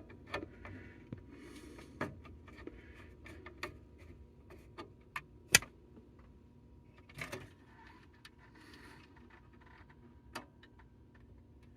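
Scattered light clicks, taps and short scrapes of hand work on an alarm control panel's wire terminals as wires are taken off, with one sharp click about halfway through.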